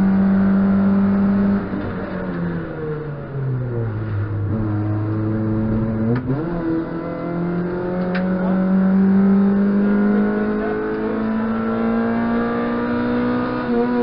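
A race car's engine heard from inside the caged cockpit. It runs high at first, then falls in pitch over a couple of seconds as the revs drop. About six seconds in the revs jump up sharply, and then they climb steadily as the car accelerates through the bend.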